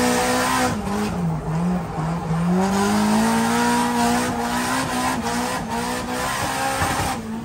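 Nissan S13's engine heard from inside the cabin while drifting, its revs rising and falling with the throttle, with a few short drops, over a steady rush of tyre noise.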